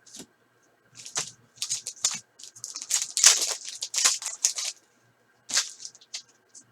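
Trading cards being handled and slid against one another, with pack wrapper rustling: a run of short, dry scraping and rustling sounds from about one second in to about five seconds, and one more near the end.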